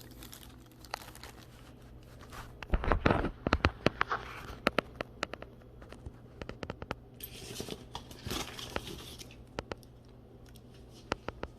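Packaging being handled while unboxing power tools: crinkling and tearing of wrapping with a run of sharp clicks and knocks, loudest about three seconds in, and another stretch of rustling a few seconds later.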